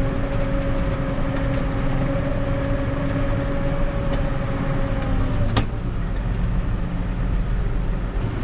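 Tractor engine running steadily, with a steady whine over it that stops at a sharp click about five and a half seconds in.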